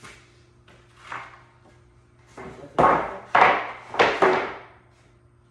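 Wooden boards being slid and knocked into place against each other on a work surface: one light scrape about a second in, then four louder sliding knocks in quick succession.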